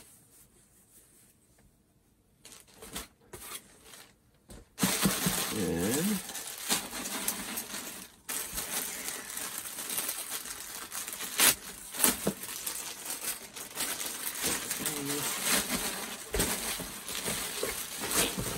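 Clear plastic bags crinkling and rustling while folded t-shirts are handled and pulled from them, starting about five seconds in and continuing with a few sharp crackles. The first seconds are quiet apart from a few light handling clicks.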